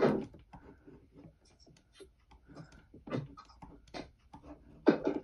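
Writing on a board: a run of short, irregular scratching strokes and taps, with brief louder sounds at the start and near the end.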